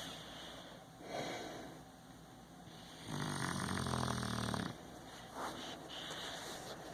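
Snoring in sleep: a soft breath about a second in, then one long, louder snore of about a second and a half starting about three seconds in.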